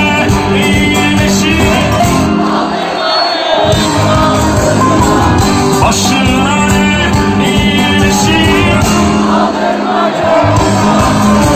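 A live band playing a song with a lead singer, guitars and keyboards, heard loud from within the crowd. The bass drops out briefly twice, about two and a half seconds in and again near the end.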